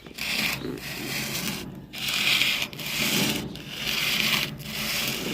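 Folded sandpaper rubbed back and forth by hand over the sheet-metal bed of a 1964 Chevy C10 fleetside, about six even rasping strokes, roughly one a second.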